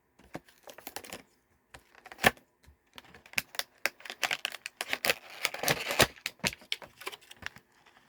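Irregular clicking and rattling of a USB cord and its plastic parts being handled, with one loud click a little after two seconds in and a stretch of crinkling around five to six seconds.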